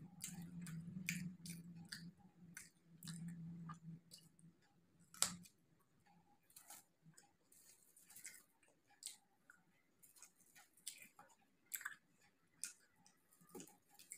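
Close-miked chewing of a raw green chilli and fried samosa pastry, with crisp wet mouth clicks over a low steady hum for the first four seconds. A single sharp click about five seconds in is the loudest sound, followed by scattered quieter crackles as the crisp samosa is broken open and chewed.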